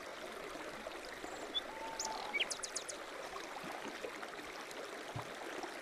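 Quiet ambience of a flowing stream with birds calling: a short whistle about a second and a half in, then a quick run of about five high chirps around two and a half seconds in.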